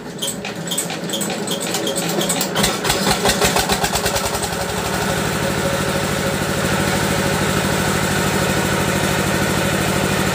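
A small engine starting and picking up speed, its firing strokes quickening, then running at a steady speed.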